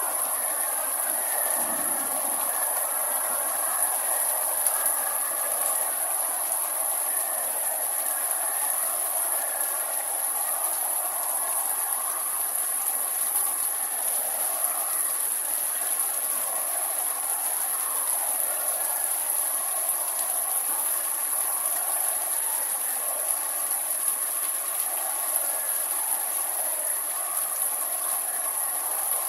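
Steady rain falling over vegetation, an even hiss that never lets up, with a constant high-pitched whine above it.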